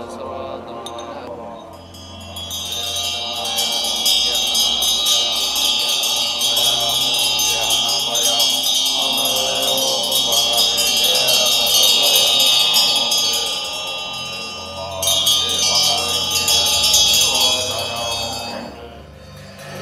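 Several Tibetan hand bells (drilbu) rung rapidly together in a continuous bright peal, over low monks' chanting. The bells start about two seconds in, break off briefly about two-thirds of the way through, then resume and stop just before the end.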